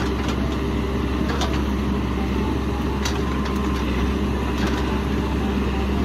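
Cat 416F backhoe loader's diesel engine running steadily under load while the rear boom digs, a strong low drone with a few light clicks.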